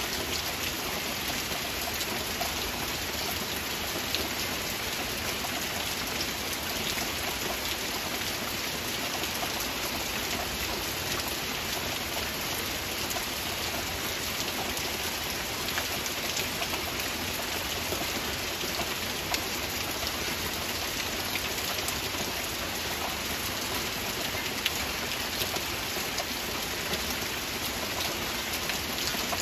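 Heavy rain falling steadily: an even, dense hiss with many small, sharper drop ticks scattered through it.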